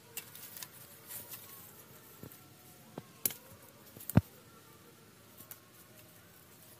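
A few scattered light clicks and taps, with a sharper knock about four seconds in.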